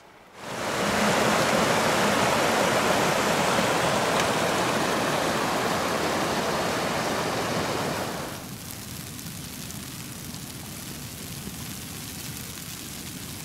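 Loud, steady rushing noise that starts abruptly just after the beginning and drops to a quieter, even hiss about eight seconds in.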